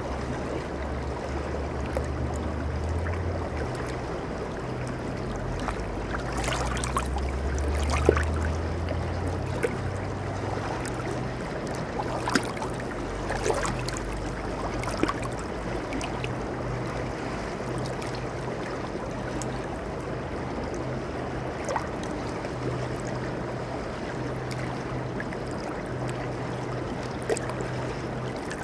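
Shallow river water flowing and rippling over rocks: a steady rush with occasional brief splashes, the sharpest about eight seconds in. A low rumble comes and goes during the first ten seconds.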